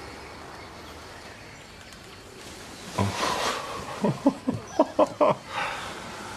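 Faint steady background hiss, then, about three seconds in, a person's breath followed by a quick run of short non-word vocal sounds whose pitch jumps up and down, about six of them in a second and a half.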